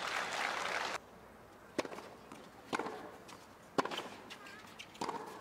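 Spectator applause that cuts off abruptly about a second in, then a tennis rally: four sharp hits of the ball, about a second apart.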